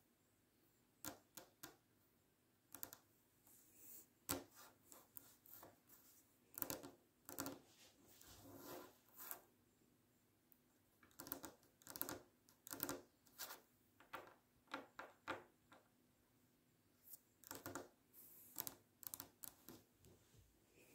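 Long fingernails tapping on a wooden table top: quick light clicks in irregular flurries, with short pauses between them.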